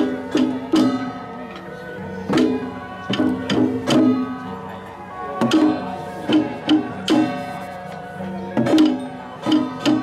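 Taiwanese temple ritual music: small hand-held drums struck in an irregular beat of sharp strokes, over steady held pitched notes.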